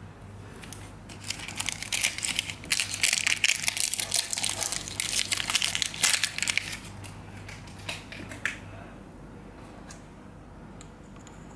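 Plastic packaging crinkling and crackling as it is handled and unwrapped, densest for several seconds and then thinning to a few scattered crackles.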